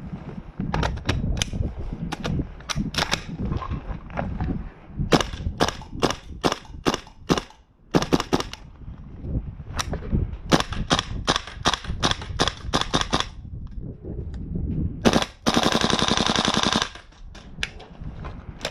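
Tokyo Marui AKX gas blowback airsoft rifle firing single shots in quick strings, each a sharp crack with the clack of the bolt cycling. About fifteen seconds in it fires one fast full-auto burst of about a second and a half.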